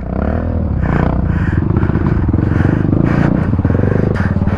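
Dirt bike engine running close by, its note wavering with the throttle in the first second and settling to a different steady pitch about four seconds in.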